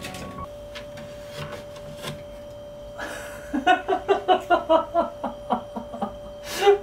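A man laughing: a quick run of short chuckles, about six a second, starting about halfway through, with a louder one near the end. A faint steady hum runs underneath.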